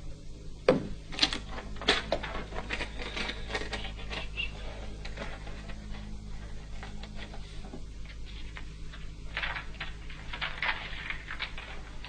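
Two runs of rapid mechanical clicking and tapping, like typing. The first begins with a few sharp louder clicks and lasts about four seconds; the second comes near the end.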